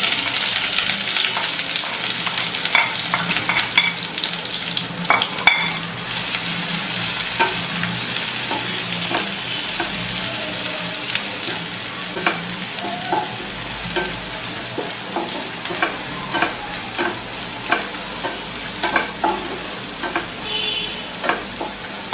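Chopped onions sizzling in hot mustard oil in a frying pan, the hiss starting suddenly as they go in and then settling a little, with a spatula clicking and scraping against the pan as they are stirred.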